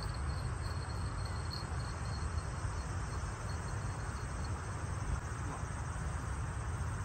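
Outdoor ambience: a steady low rumble, with an insect in the grass chirping in a fast, even high-pitched trill that fades out about two seconds in.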